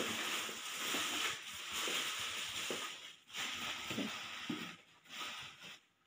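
Clear plastic bag crinkling and rustling as it is pulled off a new vacuum cleaner, fairly continuous for about three seconds, then in short scattered bursts.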